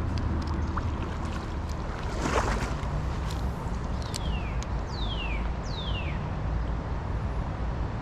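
Steady rushing of creek water and wind, with a brief swish about two seconds in and three separate whistles sliding down in pitch from a bird a little past the middle.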